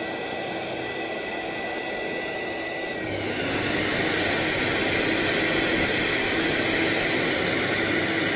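Lavor Taurus PR wet and dry vacuum cleaner running, a steady whooshing motor noise with a thin high whine. About three seconds in it becomes louder and fuller as a further suction motor is switched on.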